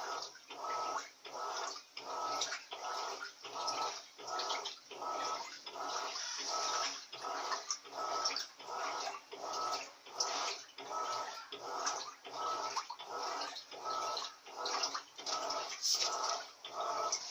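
Electrolux Silent Control 16 kg (LAC 16) washing machine agitating a duvet load in water: even, rhythmic churning and sloshing strokes, about one and a half a second.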